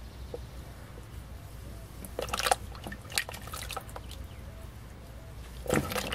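Water dripping and splashing as cut nopal pieces are lifted from a crate of soaking water and dropped back in, the water already thickening with mucilage; a cluster of splashes comes about two seconds in, another around three seconds, and more near the end.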